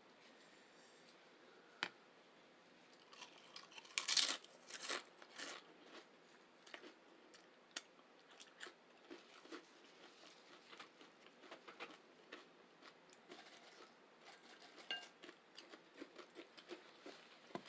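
Chips being chewed close to the microphone: a burst of loud crunching about four seconds in, then a steady run of small, softer chewing clicks.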